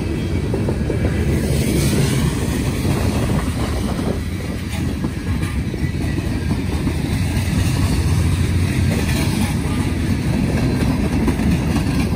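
Freight train's open-top cars rolling past close by: a steady rumble of steel wheels on the rails.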